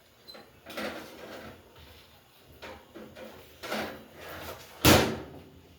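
Handling noises: a few short scrapes and rustles, then one loud, sharp knock about five seconds in.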